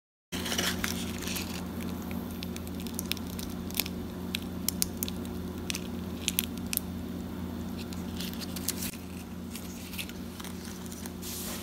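Crisp deep-fried samosa-wrapper pastry crackling and crunching in scattered sharp little clicks as a cut patty is handled and pulled apart, over a steady low hum.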